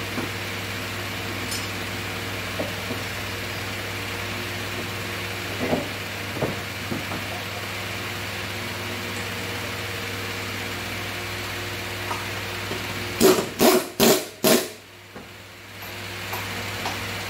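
An air impact wrench fires four short, loud bursts about 13 seconds in, running the nuts onto the hub studs to bolt the brake drum to its hub. Before that there are a few light clinks of the drum and nuts being handled, over the steady hum of a generator and fans.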